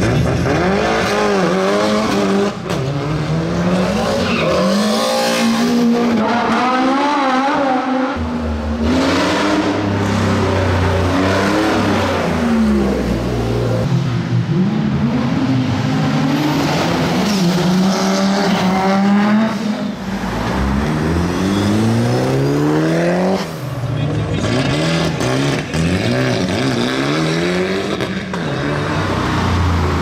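Rally and sports car engines revving and accelerating past one after another, the note climbing and dropping back with each gear change. There are several such runs.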